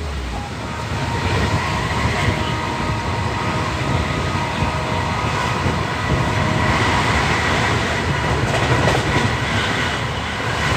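Passenger train running along the track: a steady rumble of wheels on rails, with a few wheel clicks over rail joints near the end.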